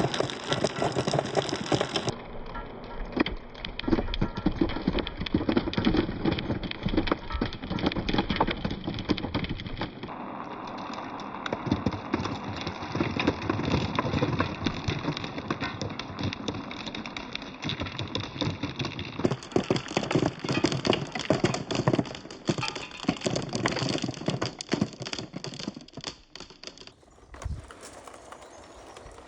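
Many marbles rolling and clacking down a marble run track, a dense stream of rapid clicks and knocks. The sound shifts abruptly three times and thins out near the end.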